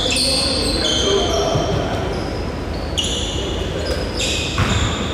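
Basketball game in play: a ball bouncing on the court, with sneakers squeaking in short high-pitched chirps several times and players' voices.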